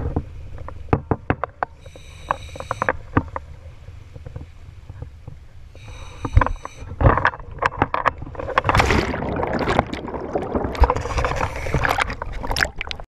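Water slapping and splashing around a rigid inflatable boat at sea, with sharp knocks of dive gear and a low rumble underneath. Two brief high whines come about two and six seconds in. From about eight seconds in there is heavy splashing and water rushing over the camera as it goes into the sea.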